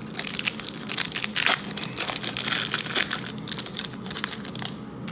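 Wrapper of a baseball-card pack being torn open and crumpled: dense crinkling and crackling that dies down near the end.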